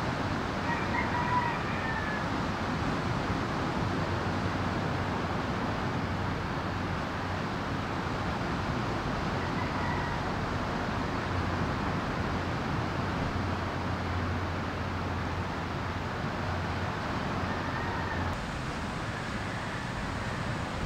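Ocean surf breaking in a steady wash, with a few faint short bird calls.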